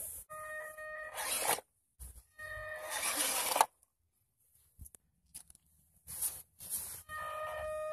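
Small electric motor and gearbox of an Eachine EAT01 1/16 six-wheel-drive RC truck whining with a scratchy grinding edge in several short bursts of throttle, cutting out between them as it crawls up a dirt slope.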